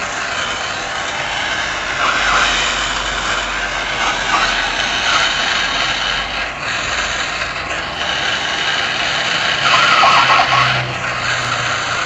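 Hand-held gas torch burning with a steady hissing roar of the flame, a little louder about ten seconds in.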